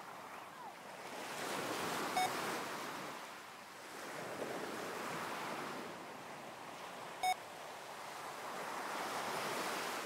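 Recorded ocean waves washing in slow swells. A short electronic beep sounds twice, about five seconds apart, marking each switch between breathing in and breathing out in a heart-coherence exercise paced at six breaths a minute.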